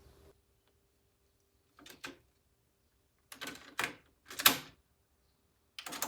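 Cassette deck being operated, its mechanism and controls giving several short clicks and clunks, the loudest about four and a half seconds in, over a faint steady hum.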